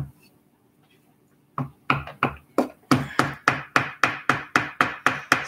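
Steel claw hammer tapping a glued wooden part into place on a wooden model. One knock at the start, a pause of about a second and a half, then a quick run of light taps that speeds up to about four or five a second.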